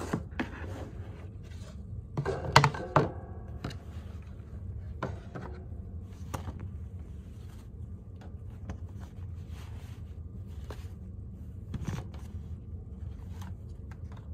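Unboxing handling noise: a string of knocks, scrapes and rustles as a cardboard gift box is opened by hand, then a drawstring fabric dust bag is handled and a leather ring-binder planner is taken out. The loudest knocks and scrapes come about two to three seconds in.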